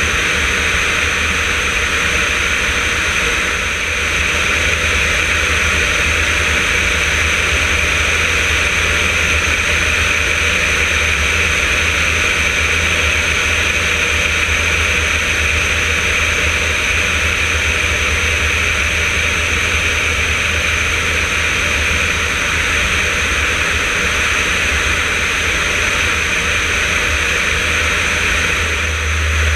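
Yakovlev Yak-52's nine-cylinder radial engine and propeller running steadily in flight, a low drone under a loud, steady rush of airflow over a wing-mounted camera. The level dips briefly about four seconds in.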